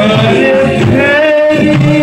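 A man singing a Nepali song into a microphone over musical accompaniment, his voice wavering on held notes.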